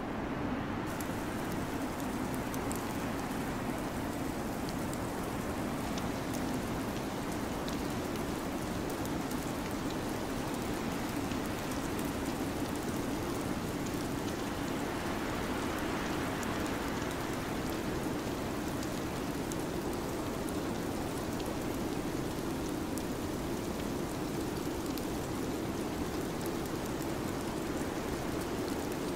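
Steady ambient noise bed: an even, rain-like hiss with a low rumble underneath and faint scattered ticks, unchanging throughout.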